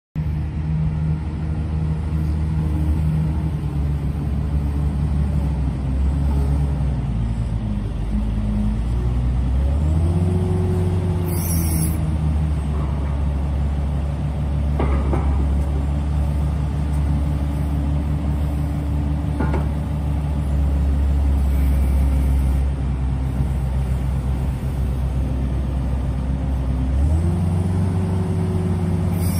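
Komatsu WA250-5 wheel loader's diesel engine running, its revs rising about ten seconds in and again near the end. There is a brief hiss about a third of the way through and two light knocks.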